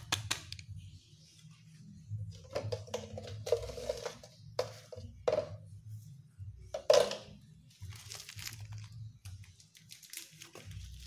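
Plastic spice sachet crinkling and short knocks and rustles as ground pepper and salt are shaken out onto a stone grinding slab. The loudest knock comes about seven seconds in, over a low steady hum.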